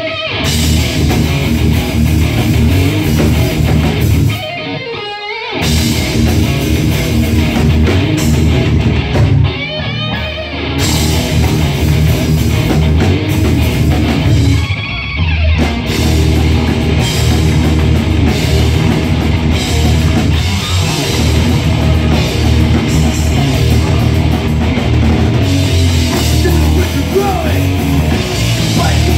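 Live heavy rock band playing loud: distorted electric guitars, bass and drum kit through a bar's PA. The full sound breaks off briefly about four, ten and fifteen seconds in, leaving a wavering guitar note, before the riff comes back in.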